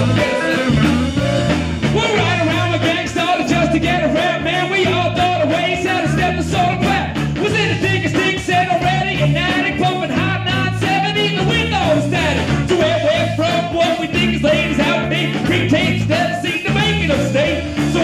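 A live rock band: a man's vocals over electric guitar and a bass line that moves in steps, played through a PA speaker.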